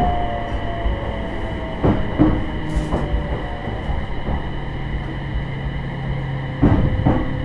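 E721-series electric train heard from inside its motor car while running: the VVVF inverter and traction motors whine, their pitch easing slightly downward early on and then holding steady, over a constant rumble. The wheels clack over rail joints a few times.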